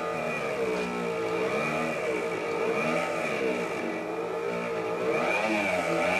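Dremel rotary tool running with a small sanding band pressed against a rubber belt-cleaning block, which clears resin dust from the clogged band. The motor's whine dips in pitch and recovers several times as the block loads it.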